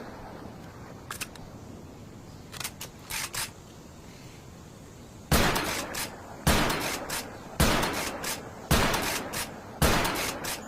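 Camara US6 shotgun sound effect: a few quiet mechanical clicks, then five loud shots about a second apart, each dying away with a short tail and a smaller click after it.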